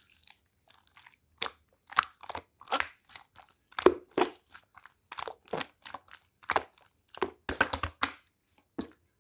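Clear slime being squished and poked by hand, giving an irregular string of sticky pops and crackly clicks, about one or two a second.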